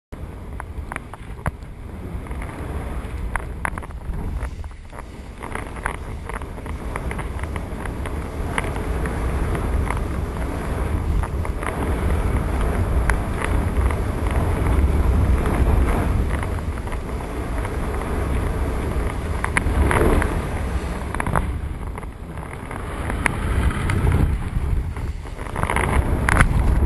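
Strong wind rushing over the microphone of a camera riding on a flying kite: a heavy low rumble that swells and eases, with scattered short sharp flaps and ticks.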